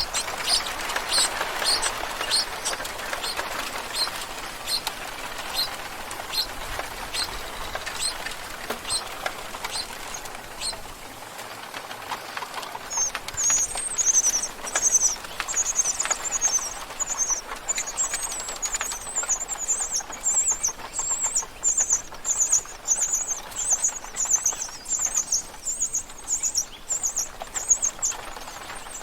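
Birds chirping: short high calls repeated at intervals, then from about halfway a quicker, unbroken run of chirps, a few each second.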